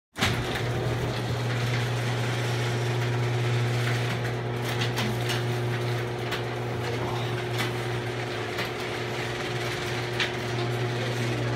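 Electric garage door opener running as the sectional garage door moves, a steady motor hum with a few sharp clicks and rattles from the door and its track.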